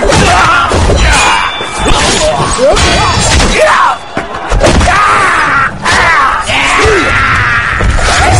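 Film battle sound mix: a crowd of soldiers shouting war cries over the thuds and clashes of weapons and shields, with a heavy low rumble throughout.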